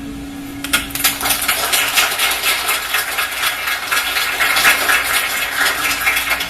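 Audience applauding: a dense patter of hand claps starts about a second in and carries on steadily, over a faint steady low hum.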